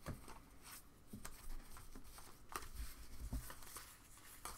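Baseball trading cards being handled and flipped through a stack: faint, scattered soft slides and taps.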